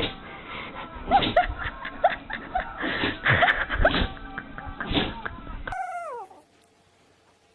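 A dog sneezing in a series of short, sharp bursts over background music, then a dog whining once in a falling pitch about six seconds in.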